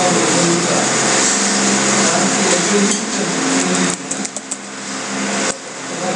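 Loud steady hiss of recording noise, with faint muffled voices underneath for the first few seconds and a few sharp clicks about four seconds in and again near the end.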